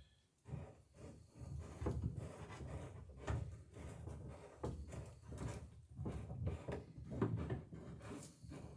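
Big wooden clamp being shifted and reset on the dory's planking: irregular wooden knocks and clunks.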